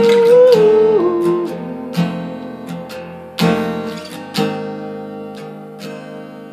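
Acoustic guitar chords picked and strummed, a few strokes about a second apart, each left to ring and fade. In the first second a held hummed vocal note slides down in pitch.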